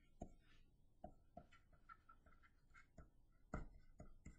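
Faint, irregular taps and clicks of a stylus writing on a pen tablet, about nine over four seconds.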